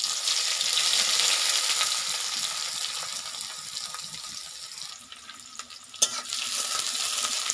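Sliced onions sizzling as they hit hot mustard oil and cumin seeds in a metal kadai, a loud steady hiss that eases a little about five seconds in and picks up again as they are stirred. A metal spatula knocks once against the pan about six seconds in.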